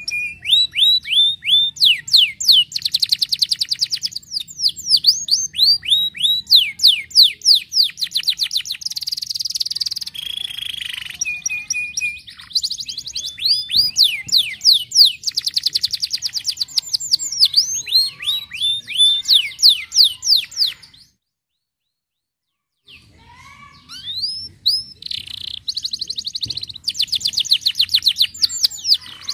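Domestic canary singing: long runs of rapid trills and quick sweeping whistled notes, broken by about two seconds of silence roughly two-thirds of the way through before the song resumes.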